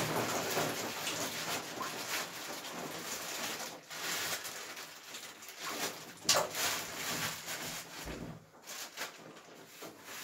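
Water sloshing and splashing in a filled bathtub as ice packs are put in by hand, with a few sharper splashes near the middle, dying away toward the end.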